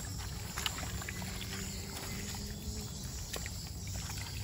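Gloved hands groping through thick mud and muddy water in a ditch, sloshing, with scattered wet squelches and small splashes.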